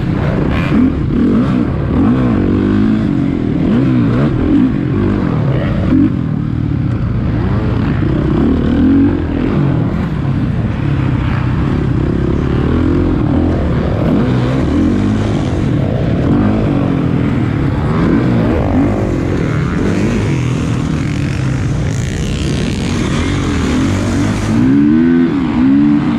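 Several motocross dirt bikes racing, their engines revving up and down over one another as riders work the throttle around the track.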